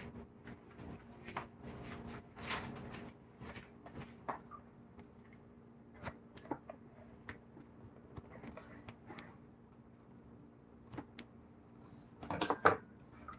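Kitchen scissors snipping at a rotisserie chicken's trussed legs, cutting the tie string: a scattered run of short, soft clicks and snips, with a few louder handling sounds.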